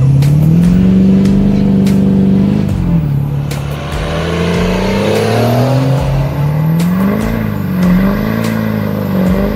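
Diesel pickup truck engine revving hard under acceleration, its pitch climbing, dropping and climbing again several times.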